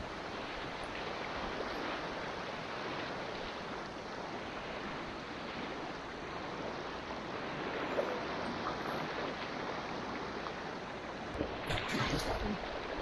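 Rushing river water around a kayak on the move, a steady noise with a few short bumps near the end.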